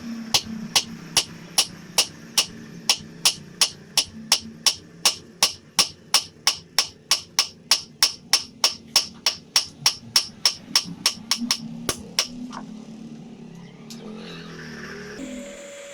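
Blacksmith forging a piece of railroad-track iron on an anvil: a steady run of hammer blows, about three a second, that stops about twelve seconds in, over a low steady hum.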